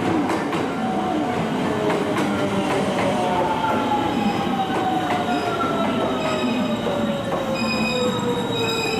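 Electric train braking into the platform. Its whine falls steadily in pitch over several seconds, with clicks of wheels over rail joints and thin, high wheel squeals coming in near the end.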